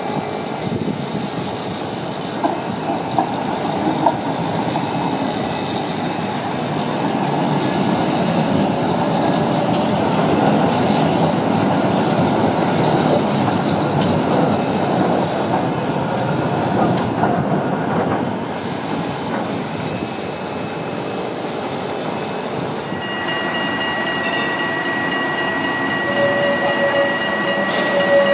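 HTM GTL8 articulated trams running on street track. First comes a long rumble of wheels on rail as a tram passes close by. In the last few seconds a tram rounding a sharp curve gives a steady high-pitched wheel squeal.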